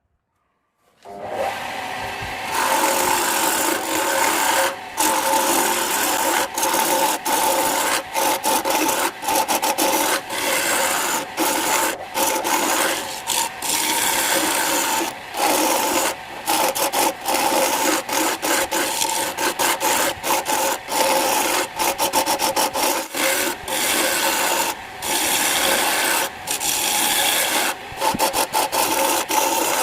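Wood lathe running, with a tool or sandpaper rubbing against the spinning wooden workpiece. It starts about a second in as a steady rasp with a hum under it, and it lifts off for a moment again and again.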